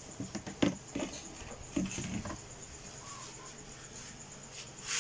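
Light clicks, taps and rattles of a clear plastic incubator tray being handled and set in place, for about the first two seconds, then only quiet steady background.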